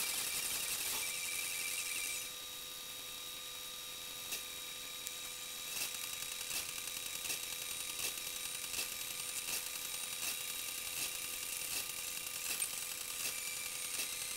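Steady electrical whine with several high tones over a faint hiss. From about six seconds in, faint regular clicks come roughly four every three seconds.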